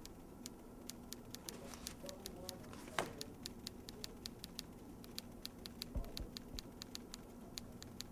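A clock ticking fast and evenly, about three to four ticks a second, over a low steady hum. There is a louder click about three seconds in and a soft low thump about six seconds in.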